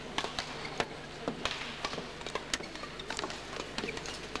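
Badminton rally: sharp, irregular taps of rackets striking the shuttlecock mixed with players' footsteps on the court floor, over the steady hum of an indoor arena.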